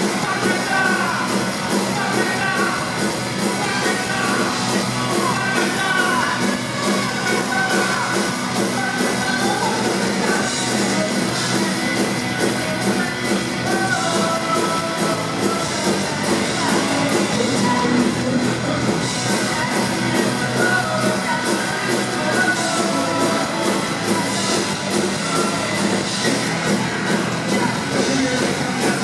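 Live rock band playing loudly, with electric guitars under a woman's lead vocal sung into a microphone.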